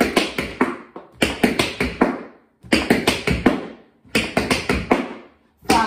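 Tap shoes dancing repeated Maxie Ford steps (jump, shuffle, jump, toe) at a quickened pace: clusters of four to six sharp taps about every one and a half seconds.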